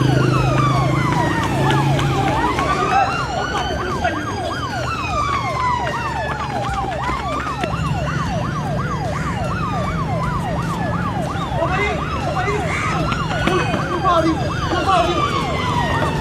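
Police siren sounding continuously in two tones at once: a slow wail rising and falling every few seconds over a fast yelp sweeping up and down about three times a second.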